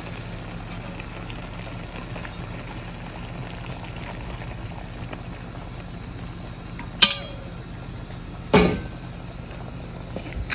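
Water poured from a stainless kettle into a hot pan of stewing pork and vegetables, a steady splashing and bubbling. Two sharp metallic clinks a second and a half apart near the end.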